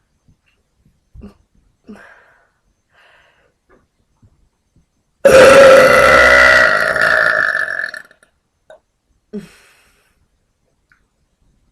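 A woman's single long, loud burp, about five seconds in, lasting nearly three seconds, with a few faint short sounds before and after it.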